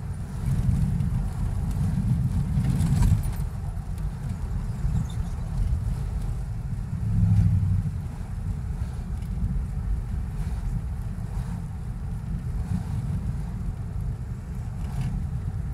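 Low, steady rumble of road and engine noise inside a moving car's cabin, swelling louder twice: from about half a second to three seconds in, and again around seven seconds.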